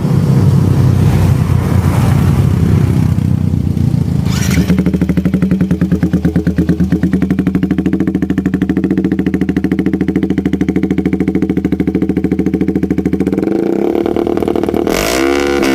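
Yamaha Vixion 150cc single-cylinder four-stroke engine running through an NR24 aftermarket exhaust. It settles into a steady, pulsing idle after about four seconds, and is revved with a rising pitch near the end.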